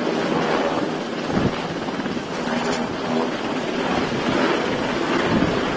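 Navy Seahawk helicopter's rotor and turbine engines running steadily as it flies away over the water, mixed with wind on the microphone and the rush of the ship's wake.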